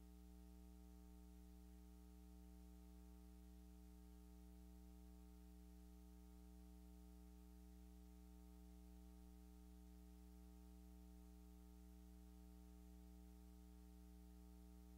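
Near silence: a faint, steady low electrical hum with overtones, unchanging throughout.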